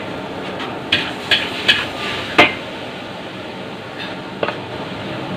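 Fried rice sizzling steadily in a wok, with four sharp metallic knocks from kitchen utensils in the first two and a half seconds, the last the loudest, and a fainter pair about four and a half seconds in.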